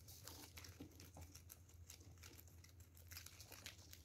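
Guinea pigs chewing and tearing leafy greens: faint, irregular crunching and nibbling clicks over a low steady hum.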